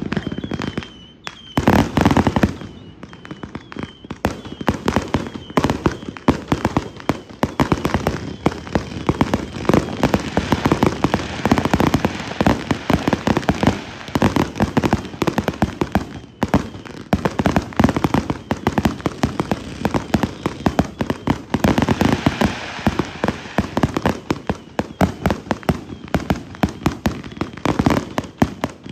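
Consumer firework cakes going off in a dense, continuous barrage of rapid pops, bangs and crackle, with a heavier boom about two seconds in.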